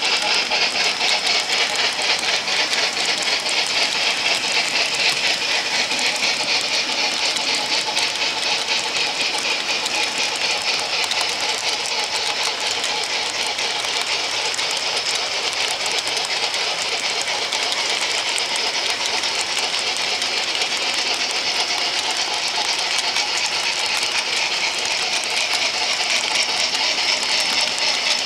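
Model freight cars rolling steadily past on track, their metal wheels making a continuous fast rattling clatter over the rail joints.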